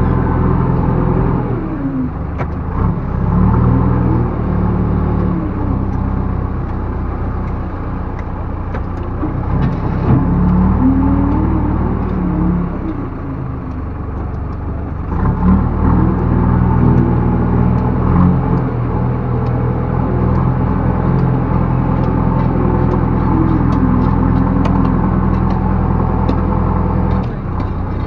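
Backhoe loader's diesel engine running and revving up and down under hydraulic load as the machine works, its note rising and falling several times.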